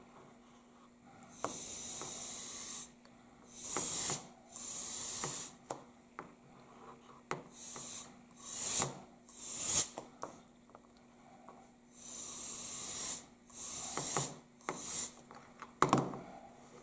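Can of compressed air fired through a thin straw nozzle in a series of hissing spurts, each half a second to a second and a half long, blowing wet alcohol ink across the plastic sheet. There are a few short clicks between the spurts.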